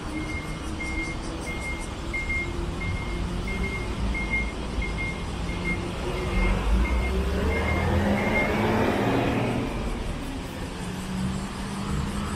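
Street traffic: a vehicle engine running low, with a single-pitched electronic warning beep repeating about one and a half times a second until about eight seconds in. A vehicle passes close near the end.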